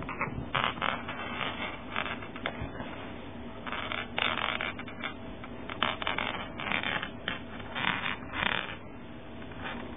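Cloth rustling and rubbing in irregular short bursts, as a cat squirms inside a sleeve or is stroked through it.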